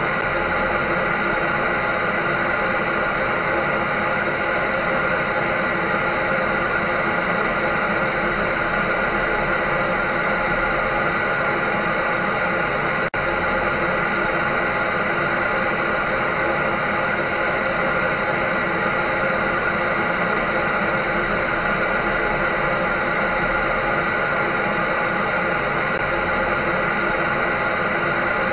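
An electric dryer running steadily: a constant rush of air under several steady whining motor tones, with a brief dropout about thirteen seconds in.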